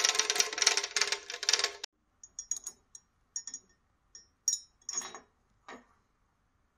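Carry handle of a Begode Mten4 electric unicycle rattling and clacking loudly on its bare, untaped metal hinge bracket as it is shaken, then a few lighter, separate clicks as it is moved more slowly. This metal-on-metal handle rattle is what makes the wheel sound noisy and cheap while riding.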